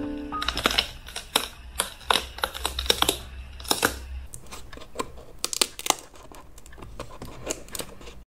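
Irregular clicks and taps of hands handling a Mamiya RB67 medium-format camera, with the bellows racked forward by the focusing knob.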